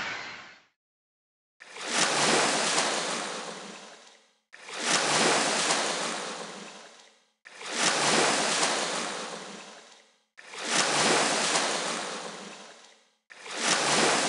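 Sea waves washing onto a shore, five even swells about three seconds apart, each coming in quickly and fading away; the first starts about a second and a half in.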